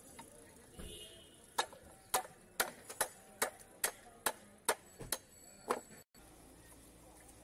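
Sharp wooden knocks, about ten in a row at roughly two a second, as a stick is hammered down to drive a boti blade through a large catla fish.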